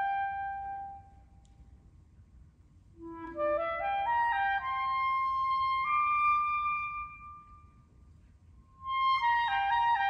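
Unaccompanied clarinet playing: a held note dies away, then after a pause a phrase climbs step by step to a long high note, and near the end a fast run of notes tumbles downward.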